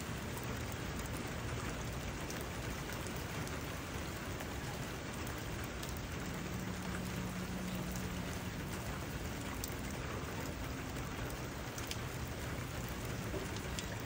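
Steady rain falling on grass, with scattered single drops ticking through the hiss.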